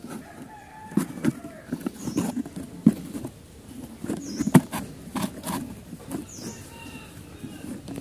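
Scattered clicks and light rustles of hands working a cardboard box and threading a rubber cord through it. Short faint bird calls repeat about every two seconds in the background.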